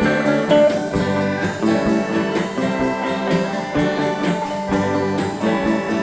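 Background music led by a plucked guitar with a steady beat.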